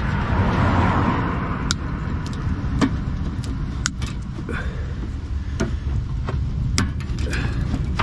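Sharp metallic clicks and knocks, roughly one a second, as the spare wheel and its carrier cage are worked loose from under the car, over a steady low rumble. A rushing noise swells and fades in the first second and a half.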